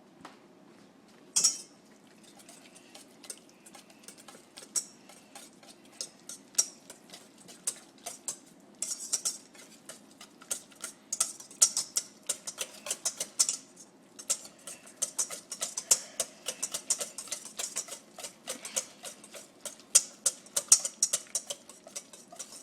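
A utensil beating eggs and mashed pumpkin in a mixing bowl, with rapid irregular clicking and scraping against the bowl. There is one louder clack about one and a half seconds in.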